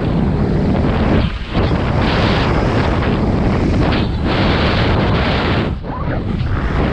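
Heavy wind buffeting on a head- or wing-mounted action camera's microphone at speedflying airspeed, a loud steady rush that briefly drops out twice, about one and a half seconds in and near the end.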